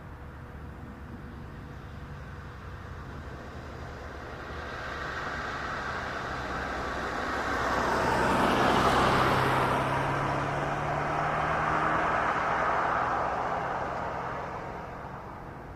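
A car driving past: engine hum and tyre noise swell to a peak about halfway through, then fade away near the end.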